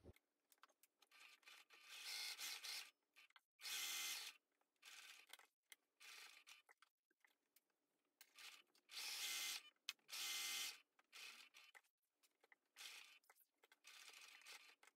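Electric sewing machine stitching a seam in several short runs of about a second each, its motor starting and stopping as the fabric is guided, with faint fabric handling between runs.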